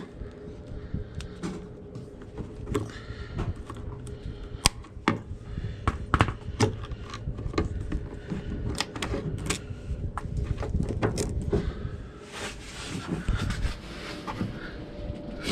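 Irregular sharp clicks and plastic rattles of hands working at a zip tie and a fuel-line quick-connect clip, over a faint steady hum.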